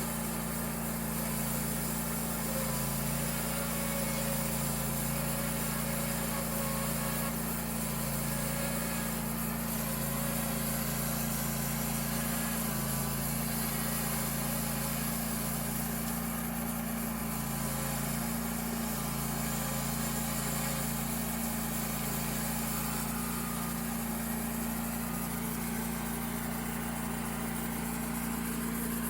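Homemade bandsaw sawmill's engine running at a steady speed, a constant even drone, while the mill saws a large spruce log.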